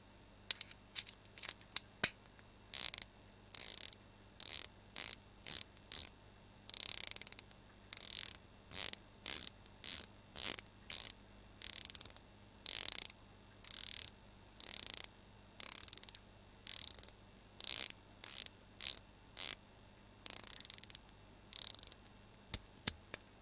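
SEK 1/4-inch drive flex-head stubby ratchet handle being swung back and forth, giving repeated short bursts of fine, fast ratchet clicking. It starts with a few single clicks and one louder snap about two seconds in.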